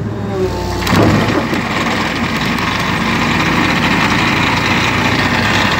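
Excavator-mounted vibratory pile hammer starting up about a second in and then running steadily as it vibrates a steel pile into the river bed, with the excavator's engine under it.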